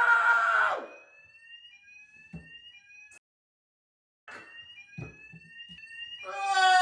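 Fire alarm sounding loudly with a steady piercing tone, cutting off suddenly about a second in. After a few seconds of near quiet with a couple of faint knocks, the alarm starts again near the end, pulsing and wavering about twice a second.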